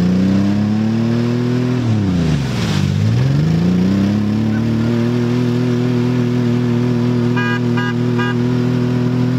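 Ford Explorer engine revving hard with its wheels spinning in deep mud, stuck fast. The revs climb, dip sharply about two seconds in, then climb back and hold high. Three short high beeps come near the end.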